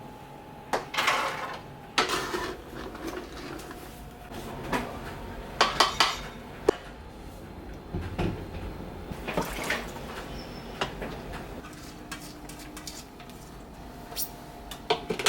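Kitchen dishes and utensils clinking and knocking: a string of separate clatters, a few clustered together, spread over a quiet steady background.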